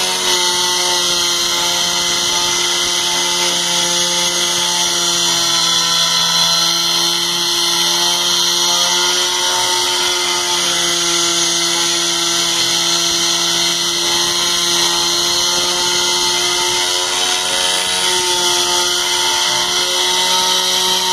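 Small CNC router spindle running steadily as its bit carves into a wooden block: a steady motor whine with the hiss of the cut.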